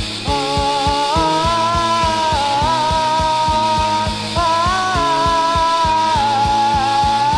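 Fast melodic punk rock in an instrumental stretch: a quick, steady drumbeat under a long held melodic lead line that steps up and down in pitch.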